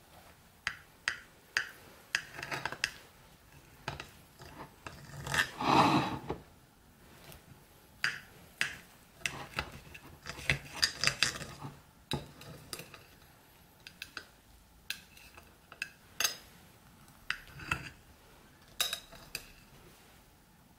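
A metal knife cutting through a baked banana cake, its blade scraping and tapping against the plate in short, irregular strokes. The longest and loudest scrape comes about six seconds in.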